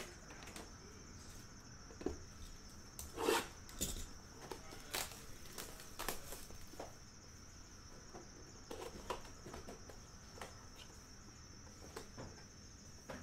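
Handling noises from opening a cardboard trading-card hobby box and taking out a plastic-encased card: scattered taps, scrapes and rustles, the loudest about three seconds in. A steady high hiss runs underneath.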